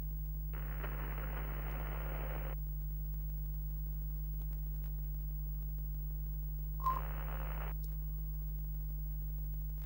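A steady low electrical hum with two bursts of thin static hiss, the first about two seconds long and the second about a second long. A short beep opens the second burst, about seven seconds in.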